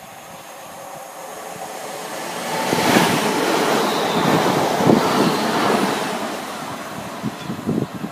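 A Class 350 Desiro four-car electric multiple unit approaching and passing close by. Its wheel and wind rush builds to a peak about three seconds in, holds for a few seconds, then fades, with a few low thumps near the end.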